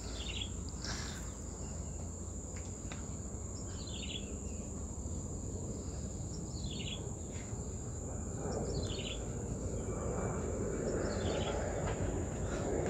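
Steady high-pitched insect drone, like crickets, with a bird giving about five short falling calls a few seconds apart.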